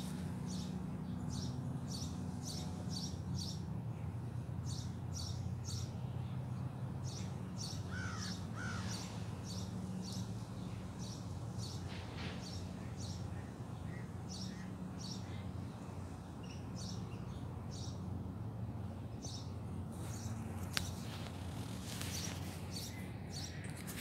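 Birds calling, a quick series of short high chirps repeating throughout, with two short rising calls about eight seconds in, over a steady low hum.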